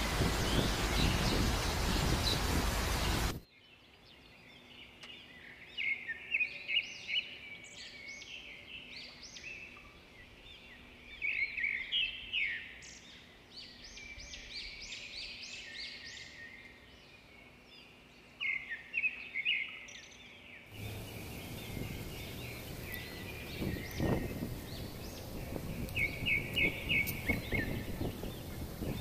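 Small birds chirping and twittering in trees, many short calls overlapping. A rumbling wind-on-the-microphone noise covers the first few seconds, cuts off abruptly, and comes back about two-thirds of the way through while the chirping goes on.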